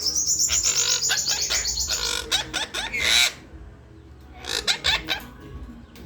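Red-breasted parakeet giving a rapid run of high, chattering notes for about two seconds, then a loud harsh squawk about three seconds in and a few shorter calls near the end.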